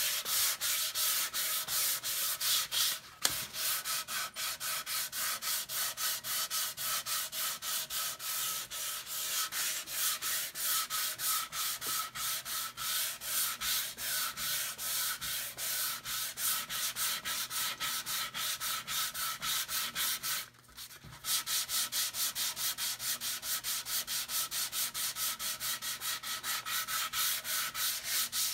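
Hand sanding of a basswood half-hull boat model with 180-grit sandpaper on a wooden sanding block: quick, even back-and-forth strokes, with a brief pause about three seconds in and another about twenty seconds in.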